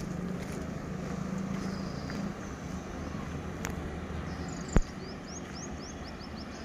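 A pair of electric locomotives running light, a steady low hum that eases a little after about two seconds. A single sharp knock just before the five-second mark is the loudest sound, and a bird gives a quick run of short rising chirps near the end.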